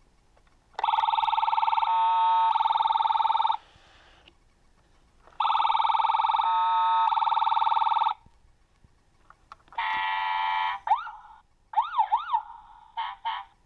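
Electronic siren sound effect from a Road Rippers toy ambulance's speaker. Two bursts of about three seconds each of a steady electronic siren tone are followed by a shorter burst. Near the end come quick rising-and-falling wail sweeps and a few short blips.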